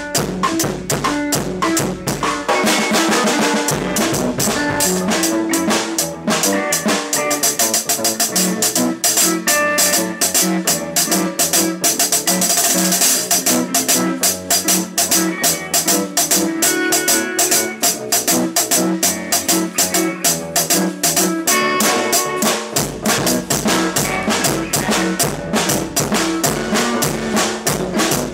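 Background music with a steady drum beat; the deep bass drops out a few seconds in and comes back about three quarters of the way through.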